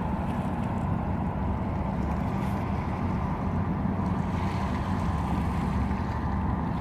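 FDNY fireboat's engines running underway: a steady low drone, with the wash of its wake.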